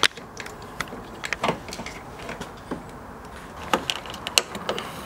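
Irregular clicks and light knocks of plastic washer caps and trim clips being worked loose on a car's front bumper.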